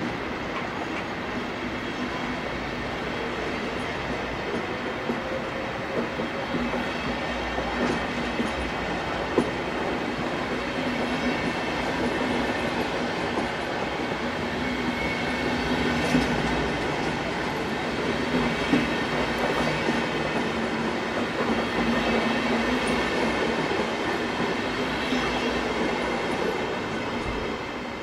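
A rake of DB InterCity passenger coaches rolling past on the track: a steady wheel rumble with sharp clacks over the rail joints every couple of seconds. The sound starts to fall away near the end as the last coach passes.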